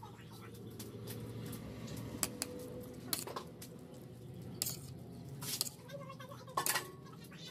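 A metal spoon and hands working sliced raw beef on a ceramic plate: a few sharp clicks and clinks, spaced about a second apart, over a steady low hum.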